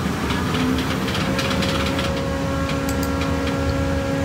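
OKI C332dn colour LED printer running as it starts a print job: a steady mechanical whir with several held humming tones, more of them setting in about two seconds in, and light ticks.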